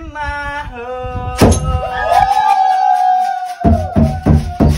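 A singing voice over a song: a sung line, a sharp knock about a second and a half in, then one long held note, followed near the end by a run of four or five heavy thumping beats.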